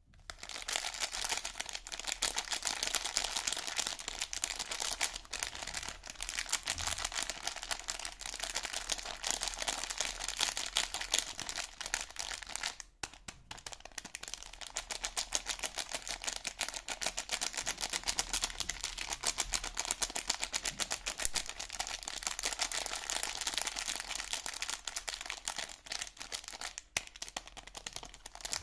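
Soap packaging being crinkled and unwrapped by hand: a dense, continuous crackle of fine clicks, with a brief pause about thirteen seconds in.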